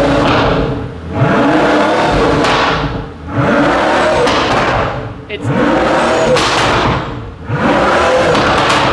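Pagani Huayra Roadster's twin-turbo V12 revved hard while stationary, about every two seconds, each rev rising and falling back. It is loud.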